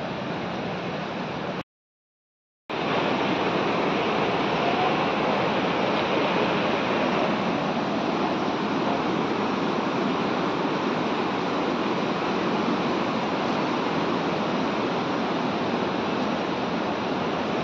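Steady rushing of a swollen, muddy mountain river in spate after days of heavy rain. There is a dropout of about a second near the start.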